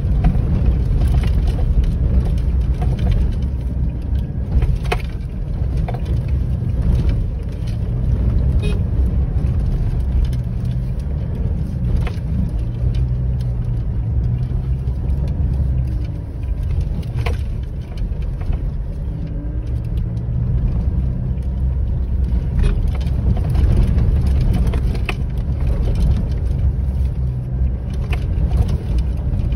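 Vehicle running on a rough dirt road, heard inside the cabin: a steady low rumble of engine and tyre noise, with scattered knocks and rattles from the bumpy surface.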